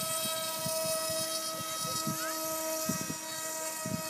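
Bixler RC foam plane's brushless electric motor and pusher propeller running at a steady throttle: an even high whine that holds one pitch.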